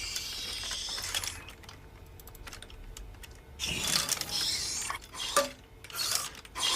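A small robot's mechanism moving its limbs, with mechanical clicking and whirring in three short spells.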